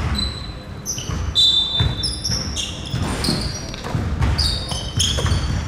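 Basketball sneakers squeaking sharply and repeatedly on a court floor during play, with a basketball bouncing in low thuds and scattered players' voices.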